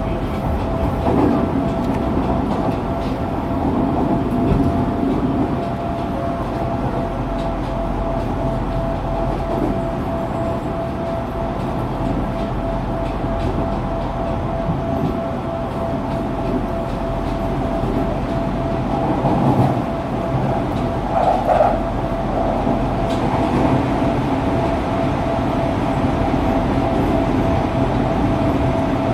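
Fukuoka City Subway 2000-series electric train running between stations, heard from inside a passenger car: a steady rumble of wheels on rail with a constant whine over it, and a few brief louder swells a little past the middle.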